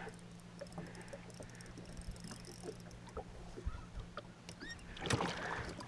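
Faint taps and clicks over a low steady hum while a hooked largemouth bass is reeled toward the boat; about five seconds in, a short, louder rush of splashing as the fish comes up beside the hull.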